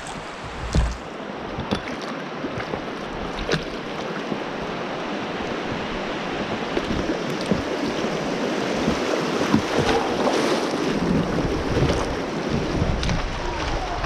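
Clear mountain river rushing over shallow gravel riffles close to the microphone, growing louder from about halfway through as the water breaks white. A few brief knocks in the first few seconds.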